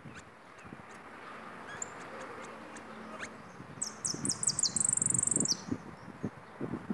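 Caged saffron finch (jilguero) singing a short burst of song about four seconds in: a few high chirped notes running into a fast, high trill lasting about a second and a half.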